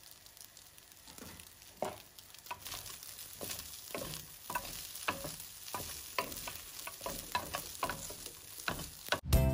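Fried rice sizzling in a stainless steel pan while wooden spatulas stir and toss it. Irregular scrapes and taps of wood on metal come several times a second over the steady sizzle, growing louder as the stirring goes on.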